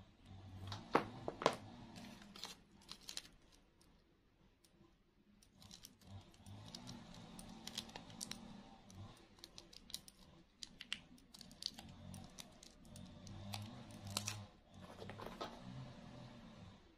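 Faint crinkling with scattered sharp clicks as a thin plastic tape is wound by hand around a wire flower stem.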